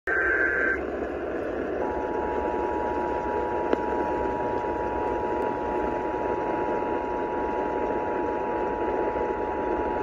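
Emergency Alert System attention signal: two steady tones sounded together, played through a portable AM radio's speaker over hiss and static. It starts about two seconds in, after a brief high beep right at the start.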